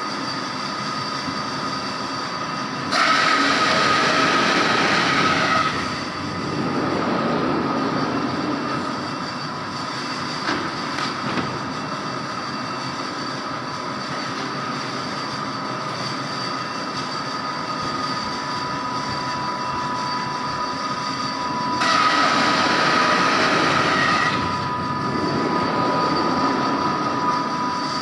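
Foam cutting machine running with a steady mechanical noise and a thin whine. It grows louder twice, for about three seconds each time, a few seconds in and again near the end.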